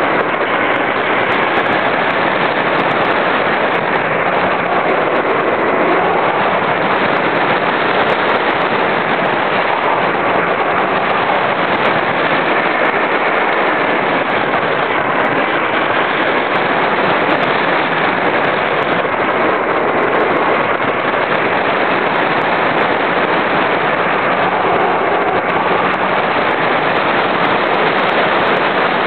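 Steady rush of air over the microphone of a camera riding on an RC glider in flight, with a faint whistle that drifts up and down in pitch.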